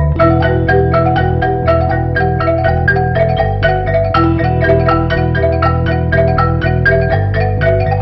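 Background music: a quick, even stream of struck, bell-like mallet notes, about five a second, over held low chords that change a few times.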